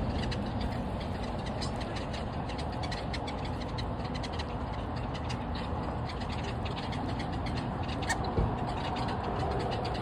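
Brewer's blackbirds and European starlings foraging right by the microphone, giving many quick, light clicks and ticks, over a steady low rumble of highway traffic.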